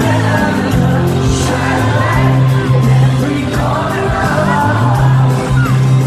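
Live band and a female lead singer performing a pop song through a concert PA, heard from within a large open-air crowd, with steady drums and held bass notes under the vocal.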